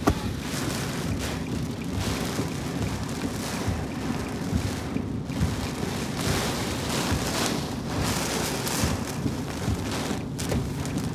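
Gusting thunderstorm wind and rain buffeting the microphone, with a steady low rumble. A sharp thump comes right at the start.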